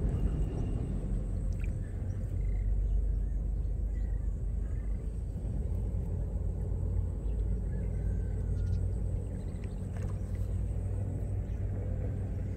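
A steady low rumble, with a few faint high chirps and light clicks over it.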